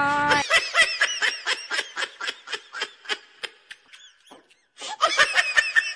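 Comic laughter sound effect laid over the video: a rapid run of high-pitched giggles, about five a second, fading away over some four seconds, then a second short burst near the end.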